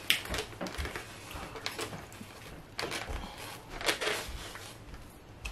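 Plastic fork picking through pancit noodles in a styrofoam takeout box: a string of light clicks, scrapes and crackles, with a few sharper clicks.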